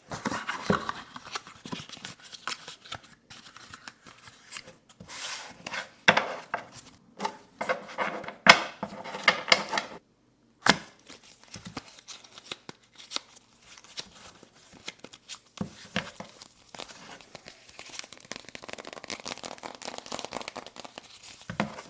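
Playing cards handled close to the microphone: many sharp taps and flicks, with a few short stretches of shuffling or riffling. The sound drops out completely for about half a second around ten seconds in.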